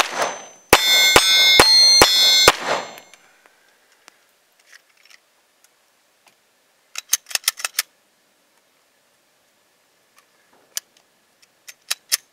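Five quick 9mm Glock 17 pistol shots, about two a second, each hit setting AR-500 steel targets ringing, the ring dying away about three seconds in. After that come scattered light clicks of the pistol and magazines being handled.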